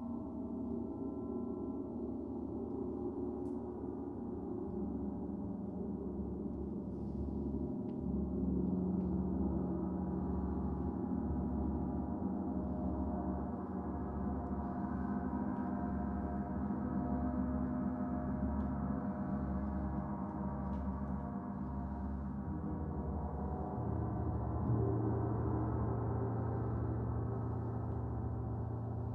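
Several gongs played together: a dense, sustained wash of overlapping ringing tones with a slow throbbing in the deep tones. A new deep gong tone swells in near the end.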